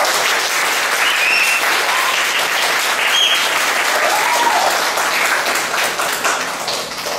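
Audience applauding and cheering, with several high whoops over the clapping, dying down near the end.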